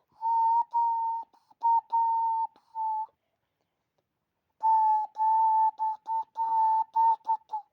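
Hand whistle blown through cupped hands with a small hole between them: a clear, breathy tone held at one pitch, broken into a string of notes. After a pause of about a second and a half it comes back as a quicker run of short notes.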